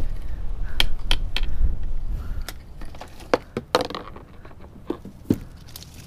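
Mangrove branches and leaves crackling and snapping as a hand pulls through them, an irregular run of sharp clicks and cracks. Wind rumbles on the microphone for the first two seconds or so.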